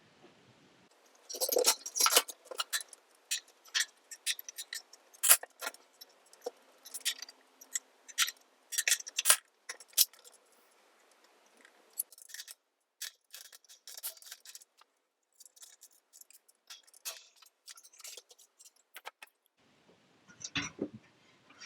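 Irregular small metallic clicks and taps as the space heater's tip-over switch lever and metal parts are handled, dense for the first several seconds and then sparse.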